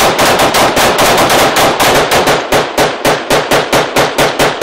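A volley of rapid gunfire from several AR-15 and AK-47 type rifles firing at once, many shots a second, overlapping at first. Toward the end the shots come more spaced and separate.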